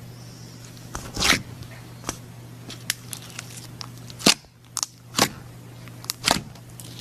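Slime being pressed and poked by hand, giving sharp pops and crackles at irregular intervals, with the loudest snaps about a second in, midway and near the end, over a steady low hum.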